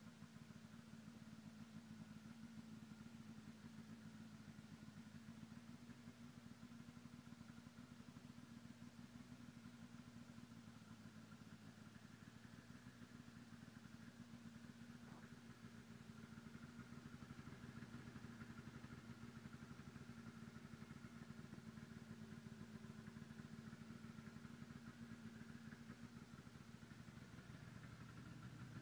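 2003 Arctic Cat 600 EFI snowmobile's two-stroke twin idling steadily and faintly.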